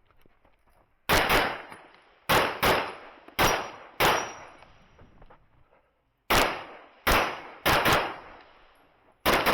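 Handgun shots fired in quick strings during an IPSC stage: about a dozen sharp reports, mostly in pairs, with a pause of about two seconds near the middle.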